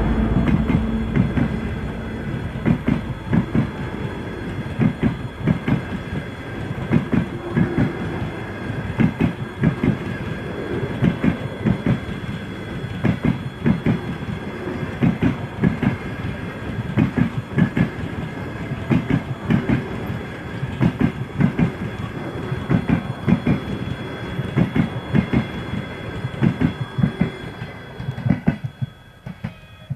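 Passenger coaches rolling past close by, their wheels knocking over the rail joints in a rhythmic clickety-clack over a steady rumble. The TEP70 diesel locomotive's engine fades out in the first seconds, and the clatter dies away near the end as the last coach passes.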